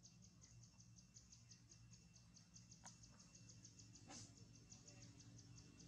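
Near silence with a faint, rapid, high-pitched ticking at about eight ticks a second over a low steady hum, and a couple of soft clicks.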